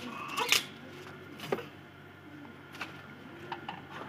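Quiet background with a few faint, scattered light clicks and knocks of small objects being handled.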